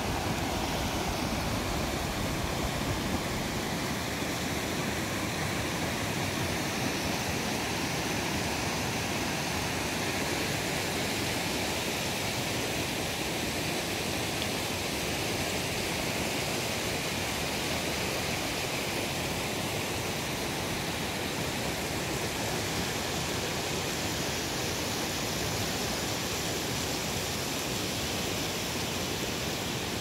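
A small waterfall and the rocky white-water stream below it, rushing steadily.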